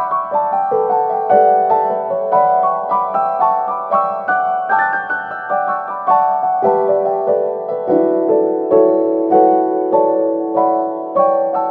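Background piano music: a steady flow of struck notes, each ringing and fading, with a lower note held from about two-thirds of the way in.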